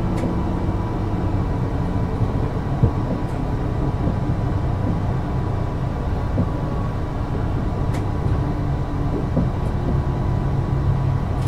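Class 333 electric multiple unit running, heard on board: the Siemens IGBT traction inverter gives a steady whine at its 1 kHz carrier frequency over low running rumble. A couple of faint clicks are heard.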